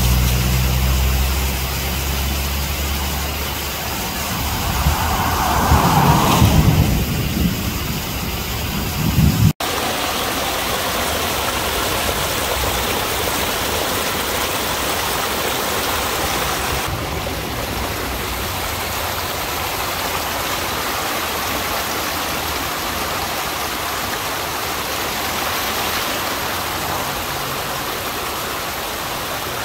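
Muddy floodwater rushing and splashing over rocks down a rocky gully after heavy rain, a steady rush of water. A heavy low rumble lies under it for the first ten seconds or so and stops abruptly.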